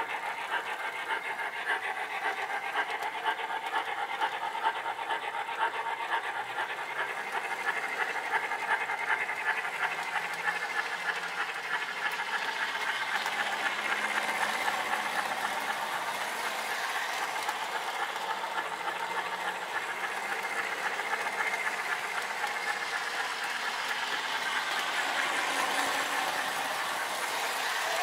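MTH Rail King Pennsylvania Railroad B-6 0-6-0 switcher model steam locomotive running around the track, its Proto-Sound 2.0 sound system playing a steady, rapid steam chuff over the noise of the wheels rolling on the metal rails.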